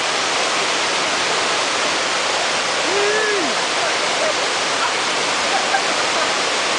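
Steady rush of a small waterfall splashing down over rocks.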